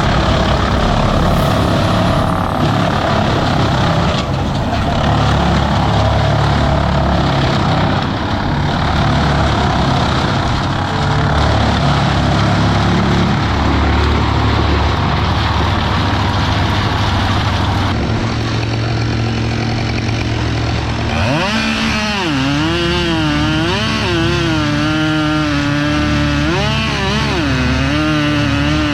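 An engine runs steadily under heavy wind noise; about 21 seconds in, a two-stroke chainsaw takes over, revving and cutting, its pitch rising and falling.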